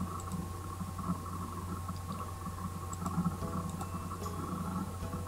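Steady low hum with faint hiss, the background noise of the recording, and a few faint clicks.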